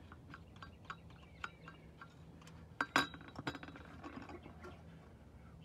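Wing nut being unscrewed by hand from the steel air-cleaner lid on an engine, giving a run of light metal clinks a few tenths of a second apart. Louder clinks come about three seconds in, as the lid is handled.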